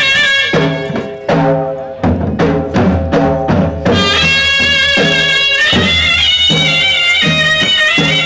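Traditional Gujarati folk music for a Charani raas: a held, changing melody line over drum beats, with a run of quick drum strokes in the middle.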